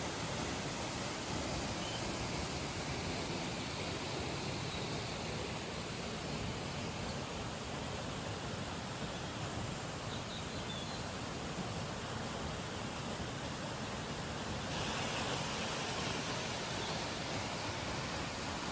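Steady rushing of a waterfall, an even hiss of falling water; about fifteen seconds in it turns brighter and hissier.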